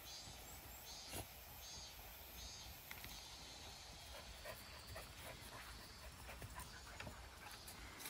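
Cicadas singing faintly in a pulsing chorus, with a single soft knock about a second in and a few light taps later.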